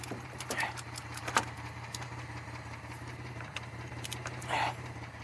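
2002 Chevy Malibu's engine idling with a steady low hum. Scattered sharp clicks and light metallic taps sound over it, with two short brighter sounds about half a second in and near the end.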